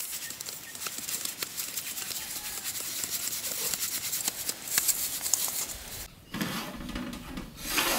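Ragi flour being sifted by hand through steel sieves over an aluminium plate: a steady hissing rustle of flour with many small ticks from the shaken sieve rims. About six seconds in it breaks off and gives way to a lower, dull rumble.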